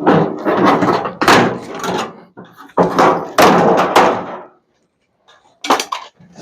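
Bursts of loud metal knocking and scraping from hand-dismantling scrap microwave parts, in three spells with a short quiet gap about three-quarters of the way through.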